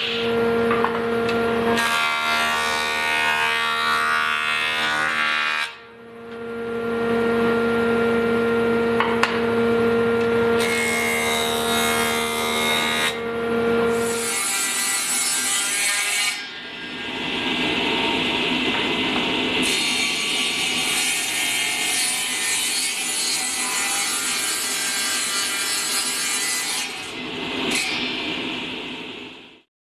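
Table saw and other woodworking machines cutting wood boards. A steady motor hum runs under the cutting for the first half, with a short break about six seconds in. The second half brings a different machine's cutting noise with two stronger spells of hiss.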